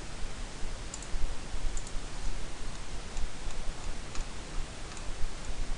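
Scattered faint clicks, roughly one a second, from a computer being operated to open a fresh page, over a steady hiss and low mains hum.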